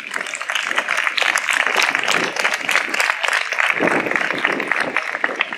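Audience applauding: a dense, even clatter of many hands clapping, with voices mixed in.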